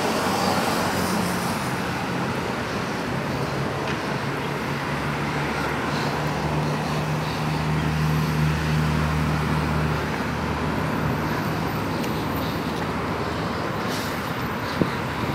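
Steady street traffic noise, with a vehicle engine's low hum coming in about three seconds in and fading out about eleven seconds in.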